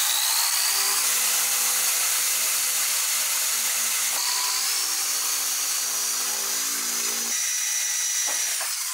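Handheld electric drill running steadily as its bit bores holes into a solid turned wooden wheel, the motor's high whine over the noise of the bit cutting wood. The whine rises a little in pitch about four seconds in, and the sound tails off near the end.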